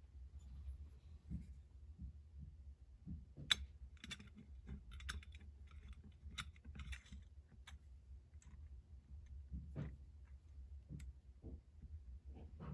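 Faint, scattered clicks and light taps of small metal carburetor parts and a gasket being handled and fitted together by hand on a Holley 4000 carburetor, with one sharper click about three and a half seconds in.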